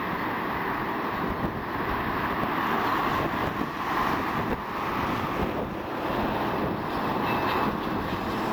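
Blackpool Balloon double-deck electric tram running along the street track as it approaches, a steady rumble and hum of wheels on rail, with wind buffeting the microphone. A brief faint high squeal comes near the end.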